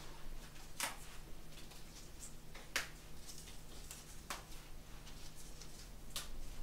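Faint handling of flower stems and foliage: four crisp little clicks a second or two apart as a white rose's stem is worked in among the stems and leaves of a hand-held bouquet.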